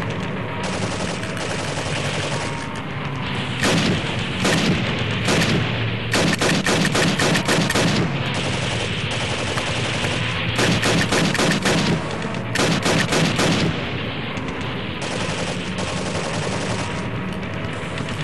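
Paintball markers firing: a few single shots, then three rapid strings of shots of a second or two each in the second half.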